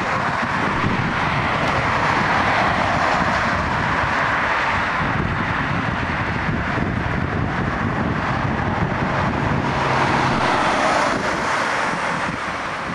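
Jet airliner engines heard close by as the aircraft passes, a loud steady rushing noise that builds at the start and eases off slightly near the end.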